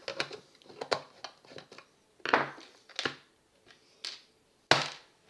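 Irregular sharp plastic clicks and cracks, with three louder snaps, from a nickel-cadmium drill battery pack's plastic casing being worked apart by hand.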